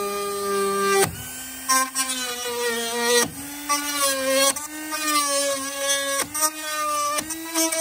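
Handheld rotary tool with a small bit grinding into the fibreglass hull-deck joint (gunwale) of a Laser dinghy. Its motor whine drops and wavers in pitch as the bit bites, with several brief breaks as the tool is pressed and eased off.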